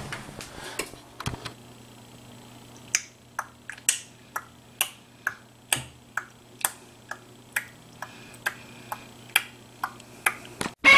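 Sharp ticking clicks at an even pace, about two a second, over a faint steady hum, with a few knocks of handling at the start.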